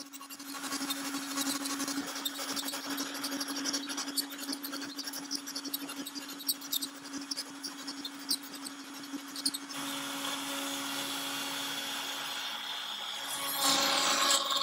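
A Onefinity CNC router's spindle runs with a steady hum while its 1/8-inch end mill drills a series of small holes through a cedar board, with a sharp click at each plunge. Just before ten seconds in, it changes to a steadier cutting sound as the bit starts cutting the panel out to its final size, and this gets louder near the end.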